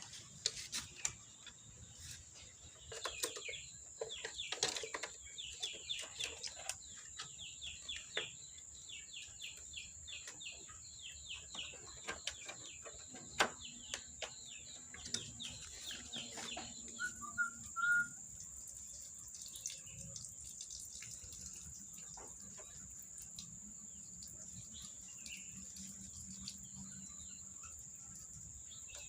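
White-breasted waterhen (ruak-ruak) calling in a long rapid series of short, high notes that stops about 17 seconds in, followed by a few scattered calls. A steady high-pitched whine runs underneath.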